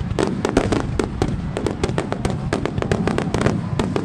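Fireworks finale barrage: rapid, overlapping bangs and crackles, many per second, over a continuous rumble of shell bursts.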